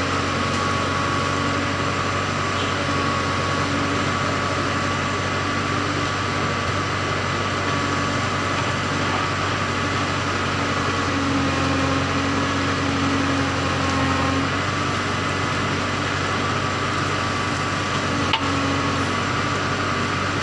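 JCB 3CX backhoe loader's diesel engine running steadily at close range while its loader bucket tips red earth and gravel into a tipper truck. A single sharp click sounds near the end.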